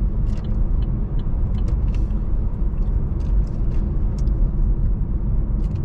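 Car driving, heard from inside the cabin: a steady low rumble of engine and tyre noise, with scattered faint light ticks.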